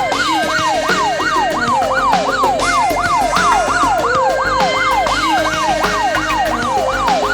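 Phone anti-theft alarm app sounding its siren: a loud, rapidly repeating falling sweep, about two and a half a second, over background music.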